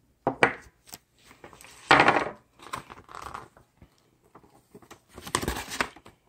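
Plastic packaging bags crinkling and rustling as they are handled, in several short bursts, loudest about two seconds in and again near the end.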